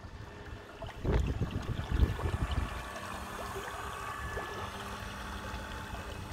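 Wind buffeting the microphone in gusts for about the first three seconds. Under it, water laps and washes on a canal while a model tugboat passes, with a faint steady hum.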